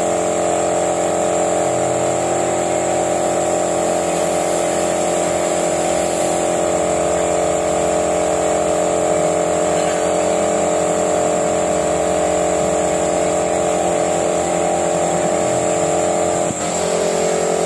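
A machine running steadily with a constant-pitch motor hum and hiss that holds unchanged throughout.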